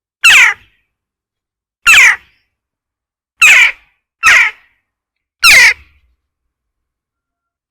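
Western jackdaw giving five short, harsh "chak" calls at uneven intervals, two of them close together in the middle.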